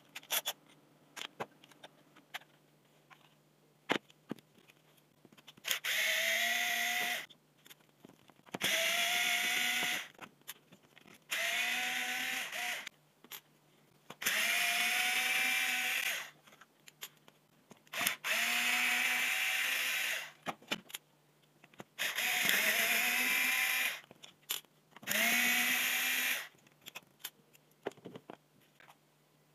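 Small cordless electric screwdriver running in seven short bursts of one to two seconds each, driving the housing screws of a cordless drill. Its motor whine rises as it spins up at the start of each burst, with light clicks of handling the drill in between.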